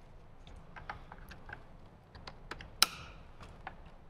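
Irregular small clicks and taps of plastic wiring-harness connectors and cables being handled and plugged together, with one sharper click a little under three seconds in.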